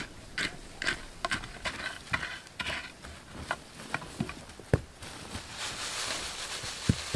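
Digging in dry earth: a run of irregular scrapes of a hoe in soil, then two sharp knocks and a spreading hiss of loose dirt being scraped and shifted.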